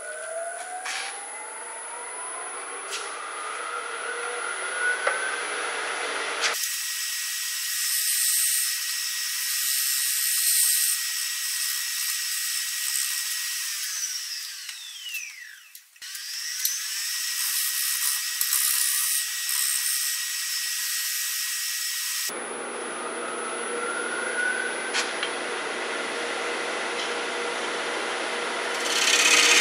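Grizzly wood lathe's motor whining as it spins up, the pitch rising. Midway it winds down almost to a stop and spins back up. Near the end a parting tool cuts into the spinning wood with a louder rough scraping.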